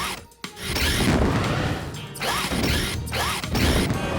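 Cartoon sound effects of a rescue vehicle's mechanical claw at work: ratcheting, clanking mechanism and crashing, with a few short squeaks, over background music.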